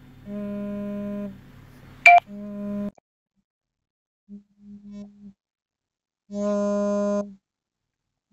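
Viber incoming-call ringtone on a Samsung phone: electronic tones about a second long, repeating at the same pitch with short gaps. One sharp click about two seconds in.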